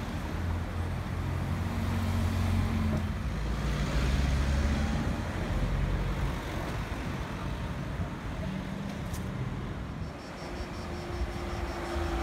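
Supercars driving past in street traffic, their engines and exhausts audible: a Ferrari California T and then a Mercedes-AMG GT R, both twin-turbo V8s.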